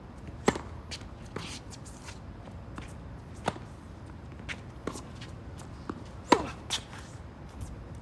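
A series of irregular sharp knocks and clicks over a steady low background, the loudest about half a second in and again a little after six seconds.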